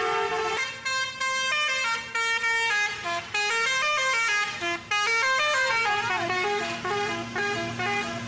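Indonesian bus musical air horns ("telolet") playing a quick melody of short notes that step up and down, several sounding at once, with a warbling glide about six seconds in. A low steady hum runs underneath.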